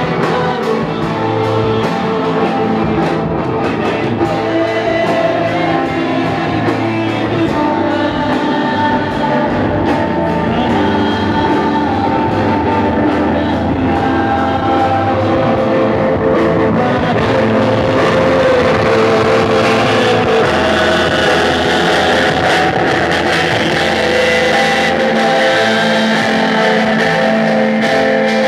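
Mixed choir of men and women singing a song together through microphones and a PA, with instrumental accompaniment keeping a steady beat.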